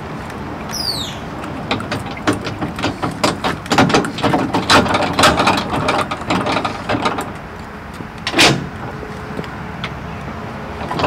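Metal clinks and clanks of a trailer hitch being coupled: the coupler and safety chains rattling against the tongue and the truck's ball mount in a quick irregular run for several seconds, then one louder clank, over a steady low hum.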